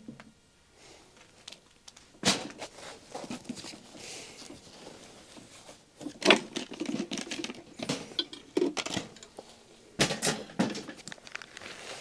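Gear being handled and set down on a metal camp table: three sharp knocks, about two seconds in, midway and near the end, with lighter clicks, clatter and rustling between them as a carrying case is opened and its contents taken out.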